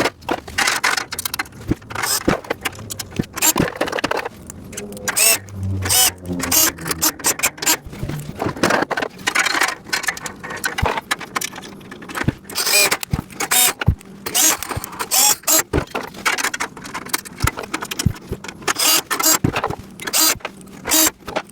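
Irregular clattering, knocking and rattling of metal rack pieces and small hardware being handled and fitted together during assembly of a storage rack.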